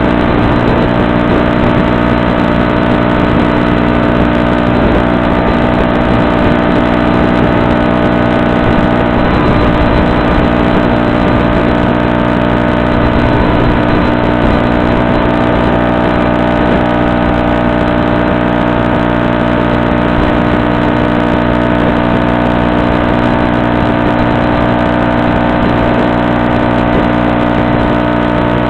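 Model plane's electric motor and propeller running at steady cruise throttle, a constant whine with many fixed tones and an even rush of air.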